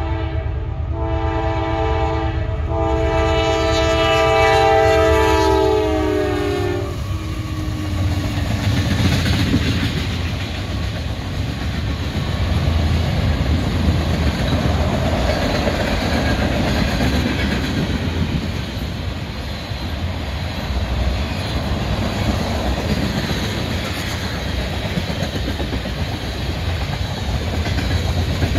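A CSX freight locomotive's air horn sounds a chord in several blasts as it approaches, the last long blast dropping in pitch as the locomotives pass and cutting off about seven seconds in. Then the steady rumble and clickety-clack of the freight cars' wheels on the rails as the train rolls past.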